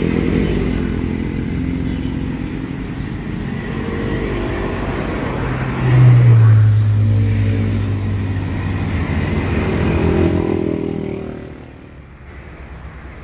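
Motorcycles and cars passing on a busy road, their engines running by one after another. About six seconds in, a loud, low engine hum comes in and holds for several seconds before the traffic fades near the end.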